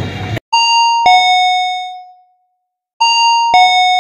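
A two-note descending chime, ding-dong like a doorbell, played twice about two and a half seconds apart, each note ringing out and fading. Just before it, a brief snatch of noise from the wrestling show cuts off abruptly.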